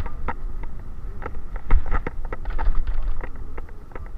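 Wind rumbling on the microphone during an electric bicycle ride, with irregular light rattling clicks several times a second.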